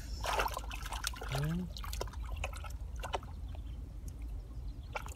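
Hands sloshing and squelching through shallow muddy water and wet mud, with scattered small splashes and drips. A brief rising vocal sound comes about a second and a half in.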